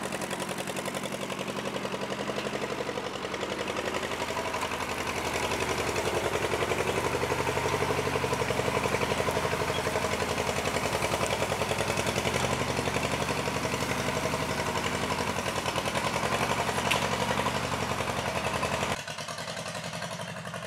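1948 Case VA tractor's four-cylinder engine running steadily with an even, rapid beat as the tractor is driven. It drops suddenly to a fainter level near the end.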